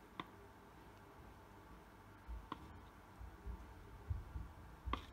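Faint clicks of a metal spoon against a plastic bowl as thick yogurt is scraped out, three clicks about two and a half seconds apart, with low handling bumps from about halfway in.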